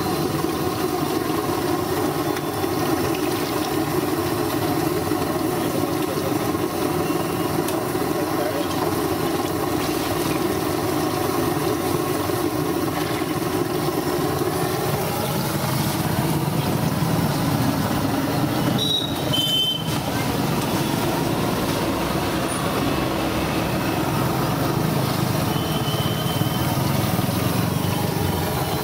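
Batter-coated green chillies (mirchi bajji) sizzling and bubbling steadily in a kadai of hot oil over a gas burner.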